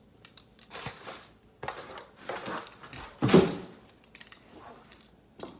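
Packaging being handled: irregular rustling and crinkling as items are unwrapped and lifted out of the box, with one louder crinkle a little past halfway.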